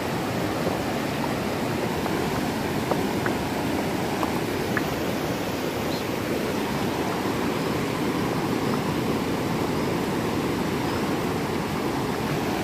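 Fast-flowing river rushing over rocks: a steady, unbroken roar of water.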